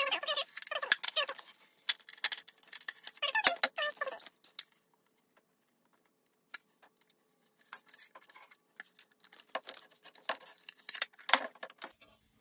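Hard plastic clicks, taps and rattles as the white plastic accessory tray of a Pfaff Expression 710 sewing machine is handled and its lid opened. A brief indistinct voice sounds at the start and again about three seconds in.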